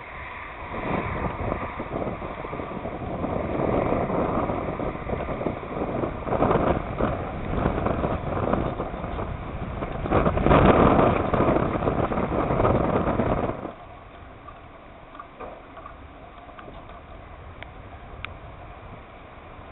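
Wind buffeting the microphone: a rumbling rush that swells and fades, strongest about ten seconds in, then stops abruptly about fourteen seconds in, leaving a faint steady background.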